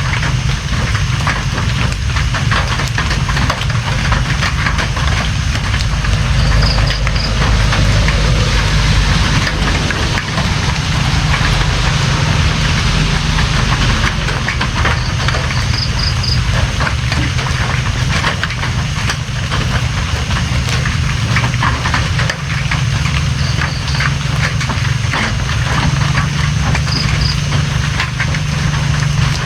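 Steady rain, with dense drop impacts pattering over a constant hiss and a low rumble underneath. A few brief high chirps come through now and then.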